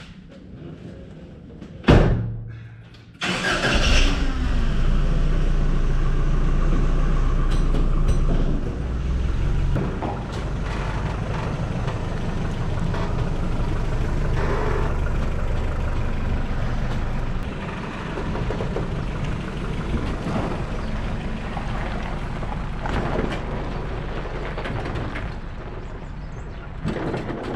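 A loud knock about two seconds in, then from about three seconds in the 1986 Toyota pickup's engine running steadily, loudest for the first five seconds and a little quieter after.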